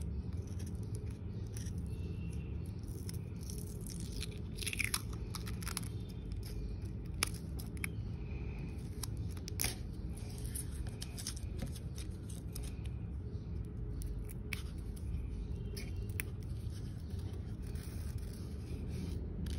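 Scattered light rustles, scrapes and clicks of thin spiral steel scroll saw blades being handled and pulled apart by hand, over a steady low hum.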